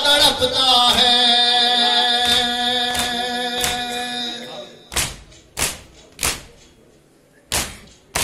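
Male reciters holding a long sung note of an Urdu noha (Shia mourning lament) into microphones, fading out just past halfway. Under it and then alone, the mourners' matam: sharp chest-beating thumps about every two-thirds of a second.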